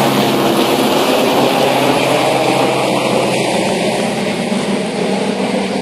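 Firefighting helicopter running steadily, a dense continuous drone with a low steady hum, growing slightly quieter near the end.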